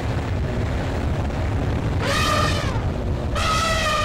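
A vehicle horn sounds two long, steady blasts about half a second apart, over the low rumble of a running engine.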